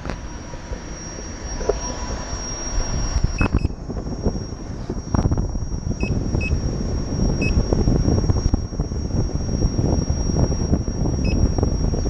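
Wind and tyre rumble from a Gotway MCM4 electric unicycle rolling along a paved road, growing louder from about five seconds in, over a steady high whine. A couple of sharp knocks come early on, and five short high beeps are scattered through the middle and near the end.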